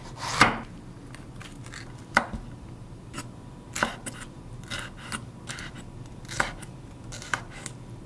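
A knife slicing through a green bell pepper and striking a wooden cutting board: a series of separate, unevenly spaced cuts, the loudest about half a second in.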